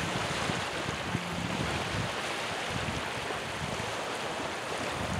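Small waves breaking and washing up a pebble shore: a steady rush of surf.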